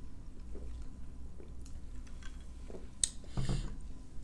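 Quiet eating and drinking sounds: sipping through a straw and chewing. About three seconds in there is a light click and a soft knock as a glass jar is set down on the table.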